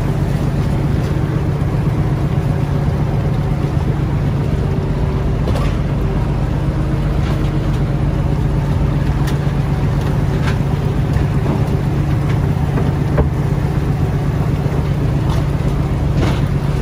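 Machinery on a shirasu fishing boat running steadily: a loud low drone with a few sharp clicks scattered through it. The drone's lowest hum changes just after the end.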